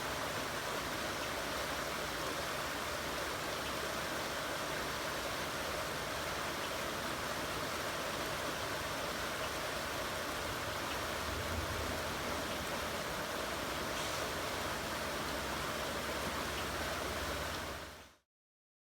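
Steady rushing of a river's flowing water, fading out quickly near the end.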